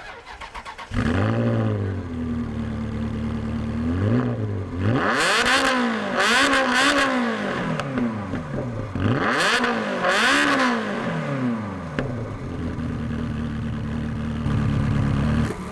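A mid-engined Ferrari V8 is revved several times from idle in short blips, its pitch rising and falling with each. The revs after about five seconds in are longer and higher, and it settles back to a steady idle for the last few seconds.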